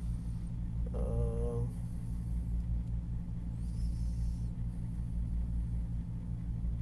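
Steady low hum throughout, with a short pitched hum of a voice, like a wordless "hmm", about a second in.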